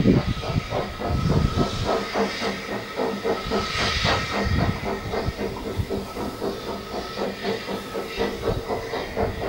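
Narrow-gauge steam locomotive hauling a train, its exhaust chuffing in a quick, even beat of about four a second over a steady hiss of steam.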